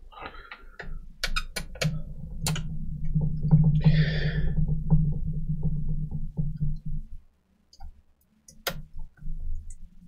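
Sharp clicks and taps of a screwdriver and screws on a laptop's plastic base, then a steady low hum with rumble for about five seconds that cuts off suddenly, and one more click near the end.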